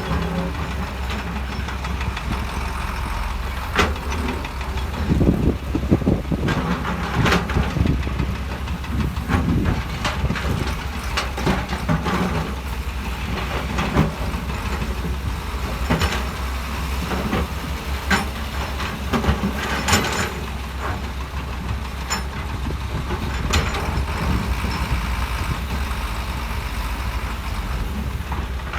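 Heavy diesel earthmoving machinery running steadily with a deep engine drone, overlaid by frequent irregular metallic clanks and knocks as the machines work in rock.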